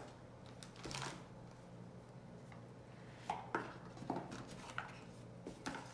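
Scattered light taps and clicks of small objects being handled, about six short knocks, most of them in the second half, over a faint steady hum.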